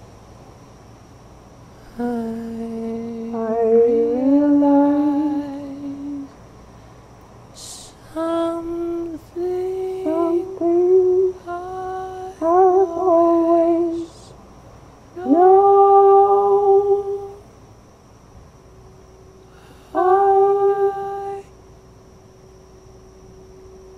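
A voice humming a slow melody in four short phrases of long held notes, with sliding onsets and pauses between them. A faint steady high-pitched whine runs underneath.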